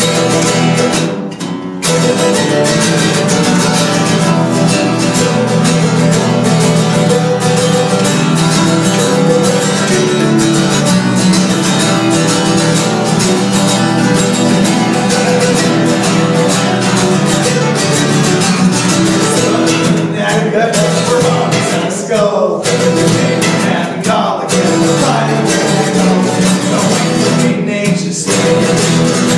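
Acoustic string trio of acoustic guitar, mandolin and acoustic bass guitar playing a tune together, with steady strumming and picking that dips briefly once or twice.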